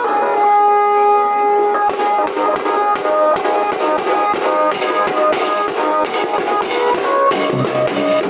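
Nasik dhol band music: a held, reedy melody line, joined about two seconds in by fast, dense drum strokes under the tune.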